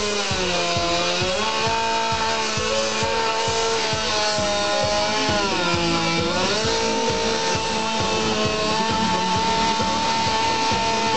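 Dolmar two-stroke chainsaw running at high revs while cutting into a block of ice. Its pitch sags under load about half a second in and again around six seconds, then picks back up.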